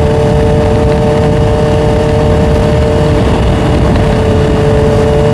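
Honda CBR650R's inline-four engine running at a steady cruise, one constant pitch that neither rises nor falls, over a dense low rumble.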